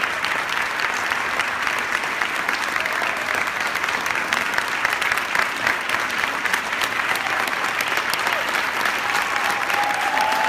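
Audience applauding, a dense steady patter of many hands clapping, with a steady held tone joining in near the end.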